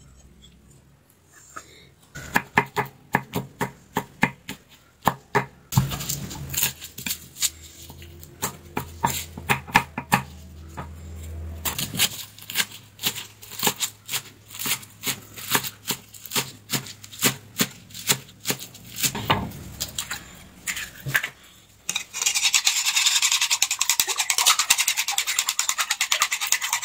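Chef's knife chopping spring onions on a wooden cutting board in quick, even strokes, with a couple of short pauses. Toward the end it gives way to eggs being beaten fast in a bowl, a rapid continuous clatter of the utensil against the bowl.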